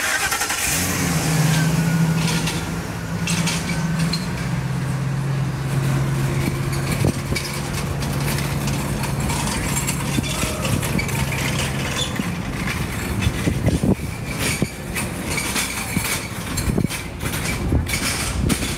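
Street traffic: a motor vehicle's engine running with a steady low hum that drops in pitch about four seconds in and fades out a few seconds before the end, followed by a run of sharp knocks and clatter.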